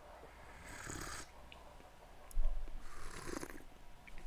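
Two loud slurps of coffee drawn in from small cups, the airy intake tasters use to spray the coffee across the palate, about two seconds apart. There is a low bump just before the second slurp.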